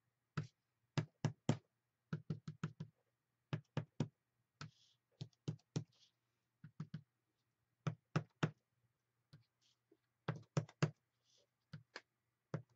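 The edge of a paint-loaded mark-making tool tapped and pressed onto a paper journal page lying on a tabletop: sharp taps in irregular clusters of two or three, with a few brief soft scrapes between them.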